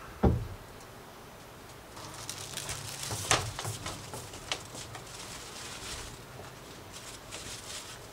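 A single low thump as a large terracotta pot is set down on a wooden workbench. From about two seconds in, a plastic bag crinkles and rustles with light clicks while potted flowers are handled on the bench.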